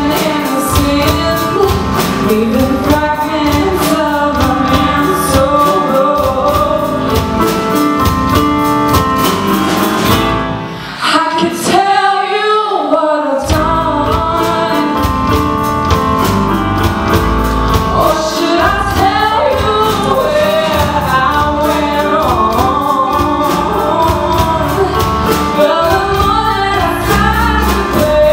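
Live band playing a soul-rock song with a woman singing lead over drum kit and bass. About ten seconds in the band drops out for a few seconds, leaving her voice almost alone, then comes back in.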